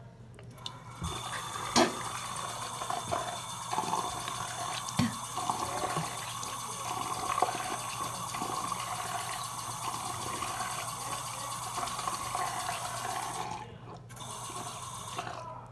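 Bathroom sink tap running, with water splashing into the basin and a few small knocks against the counter; the water stops suddenly about thirteen and a half seconds in.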